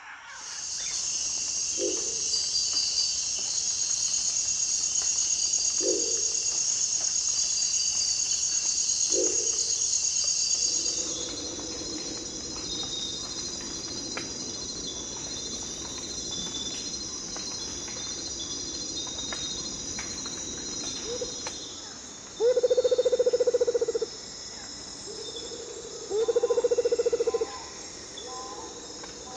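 Amazon rainforest ambience: a dense, high-pitched chorus of insects, with short low animal calls every few seconds. The chorus drops to a softer level partway through. Near the end come two loud, low, rapidly pulsing trills, each about a second and a half long.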